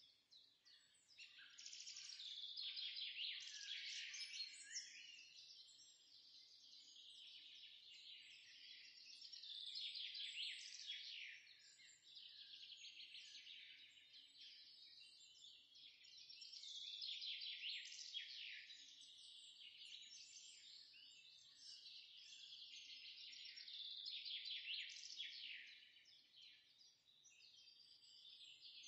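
Faint chorus of many small birds chirping and twittering without a break, swelling and fading every few seconds.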